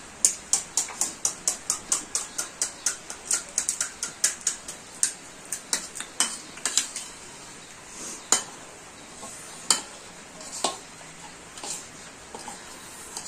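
Utensil clinking against a dish in quick, even taps, about four a second, then slowing to scattered single clinks about five seconds in.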